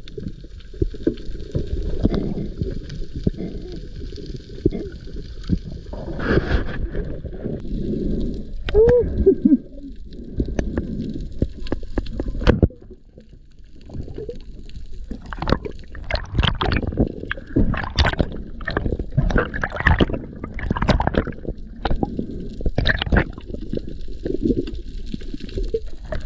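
Underwater sound heard on a diving camera: water gurgling and bubbling, scattered with clicks and knocks. It drops off suddenly about halfway through, then comes back with a dense run of sharp clicks.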